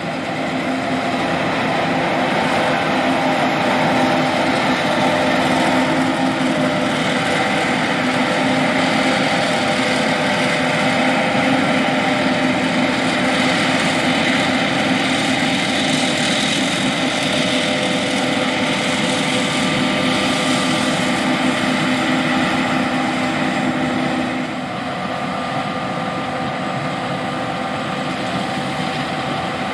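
John Deere S780 combine harvester running steadily under load, its engine and machinery making a constant hum of several held tones over a rushing noise. It drops a little in level about 24 seconds in.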